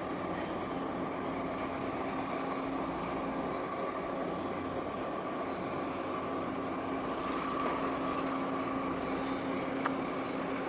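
Steady mechanical drone of a large container ship under way, its engines and machinery giving a constant hum with several held tones. A short click sounds near the end.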